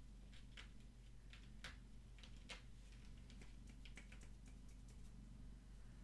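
Near silence: quiet room tone with a faint steady low hum and scattered faint ticks.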